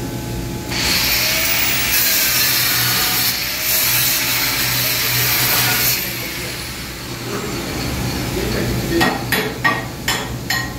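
Small angle grinder spinning up about a second in and grinding a metal pipe, a loud grinding hiss with the motor's high whine, cutting off about six seconds in. Several sharp metal knocks follow near the end.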